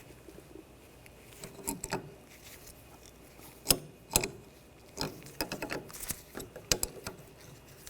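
Side cutters gripping and bending a steel cotter pin make irregular small metal clicks and taps. The sharpest click comes a little under four seconds in.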